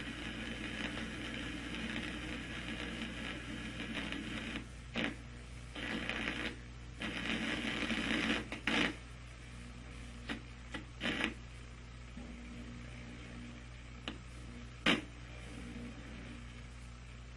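Steady hiss and low mains hum with irregular short bursts of crackle and clicks: the noisy soundtrack of degraded analogue video tape.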